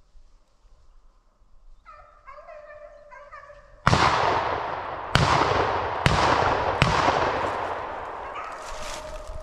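Rabbit hounds baying on a track, then about four seconds in a loud gunshot followed by three more quick shots over the next three seconds, their reports echoing and slowly dying away. The hounds are baying again near the end.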